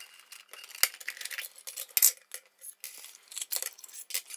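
Hard plastic parts of a batter mixer-dispenser clicking, knocking and rattling as it is taken apart by hand, with small parts set down on a stone countertop. The clicks come irregularly, several a second.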